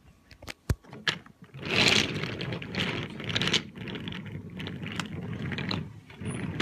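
Wooden toy train cars pushed by hand across a tabletop, their wooden wheels rolling with an uneven rattle and clicks. A few separate sharp clicks come in the first second before the rattling sets in.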